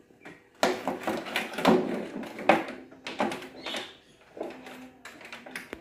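Handling noise: a rapid series of knocks, rubs and scrapes as things are moved about against a wooden table, busiest in the first few seconds and then thinning out.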